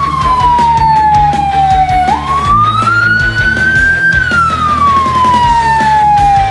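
Police car siren wailing in a slow cycle: about two seconds in it jumps up in pitch, climbs to a peak, then slides slowly down, repeating roughly every five seconds. Background music with a steady beat plays under it.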